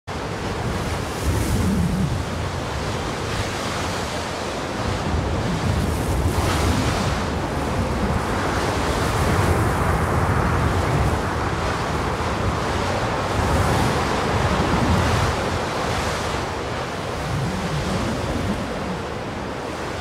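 Heavy wind blowing in strong gusts: a continuous rush of noise that swells and eases every few seconds.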